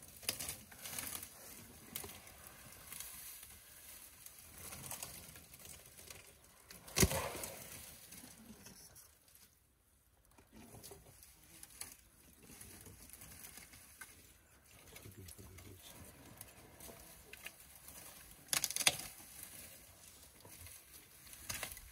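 An African elephant feeding: rustling and tearing of dry grass and twigs as its trunk pulls them up, with a louder sharp snap about seven seconds in and another near the end.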